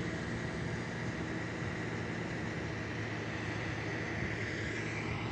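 Heavy diesel earthmoving machinery running at a steady engine speed: a continuous low engine drone with a hiss over it.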